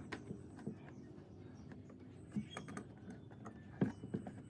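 A few light knocks and clicks of wooden battens being set against metal right-angle corner clamps on a wooden workbench, the loudest knock near the end.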